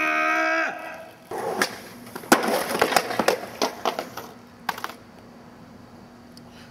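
A skater's pained yell just after a fall, lasting about a second, then a skateboard clattering on asphalt in a run of sharp, irregular knocks for about three seconds.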